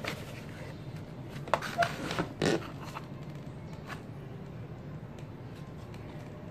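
Kittens scrabbling with their claws on a cardboard box, a short cluster of scratchy rustles from about a second and a half in, over a low steady hum.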